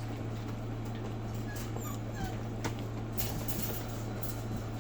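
Nine-week-old Bordoodle puppies whimpering, with a few short, high squeaks about two seconds in, over a steady low hum and scattered small clicks.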